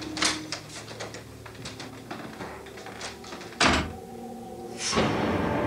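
A run of light clicks and knocks, then a door shutting with a loud knock about three and a half seconds in. Near the end a sustained, steady sound swells in.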